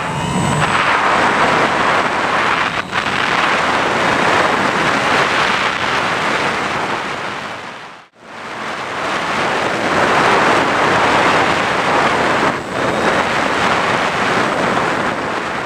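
Steady, loud rushing noise from the Skywalker model plane in flight, picked up by its onboard camera. It fades out to nothing about eight seconds in and fades back in.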